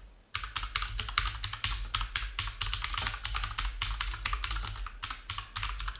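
Rapid typing on a computer keyboard: a quick, continuous run of key clicks starting about a third of a second in, over a low steady hum.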